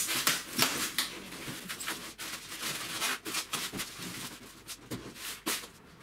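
Plastic packaging crinkling and crackling, with scattered clicks and knocks, as a tumble dryer is shifted off its polystyrene pallet. It is busiest in the first second and thins out towards the end.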